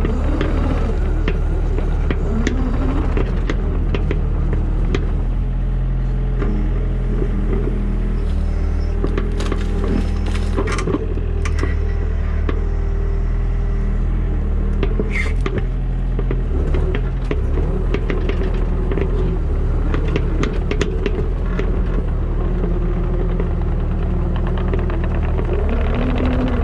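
Diesel engine of a construction digger running steadily under load, with metal clanks and knocks from the working bucket and arm, and a couple of brief squeals from the linkage.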